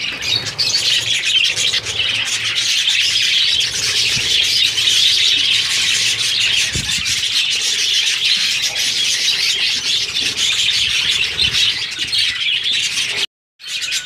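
A flock of budgerigars chattering and chirping without a break, with a brief cut-out near the end.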